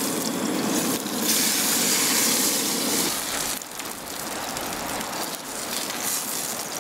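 Floured snapper fillet sizzling in hot oil and butter in a frying pan as it is turned over with tongs and a spatula. The sizzle swells and brightens for about two seconds from about a second in, then settles to a lower, steady sizzle.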